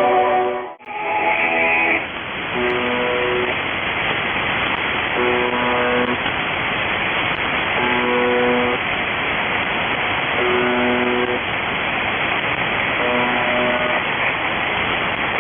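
Heavy static on a hijacked military radio channel, with a faint short musical phrase repeating about every two and a half seconds under the hiss. The signal drops out briefly about a second in.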